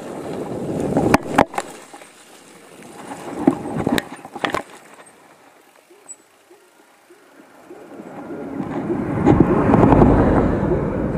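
Mountain bike rolling down a rough, muddy trail: a rushing of tyres and wind with sharp rattling clicks from the bike, fading as it slows and stops, then a rushing noise swelling again near the end.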